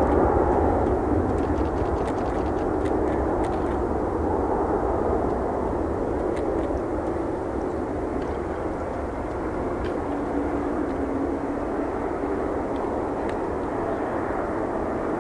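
Boeing 787-8 Dreamliner's jet engines at takeoff power as the airliner rolls away down the runway: a dense, steady noise that is loudest at first and eases a little as the jet pulls away.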